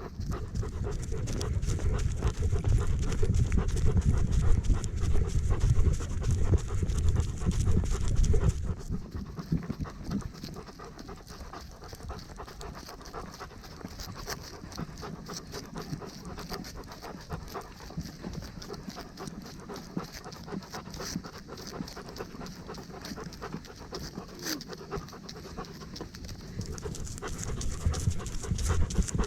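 A dog panting steadily, close to a camera the dog itself carries. A heavy low rumble sits under it for the first nine seconds or so, then drops away.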